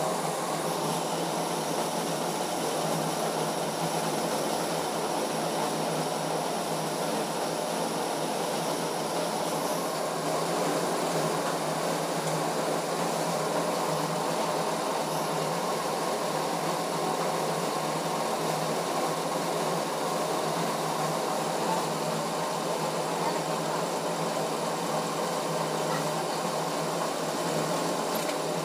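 Diesel injection pump test bench running steadily, driving an Isuzu 4JB1 injection pump during calibration: an even mechanical drone.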